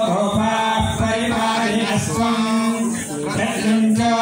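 Male Hindu priests chanting mantras together on a steady pitch, one voice leading through a microphone and PA.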